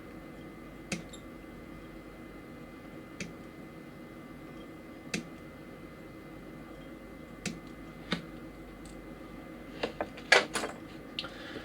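Scattered light clicks and taps from small plastic model-kit parts being handled and fitted, a few seconds apart, with a quick cluster of louder clicks near the end. A low steady room hum runs under them.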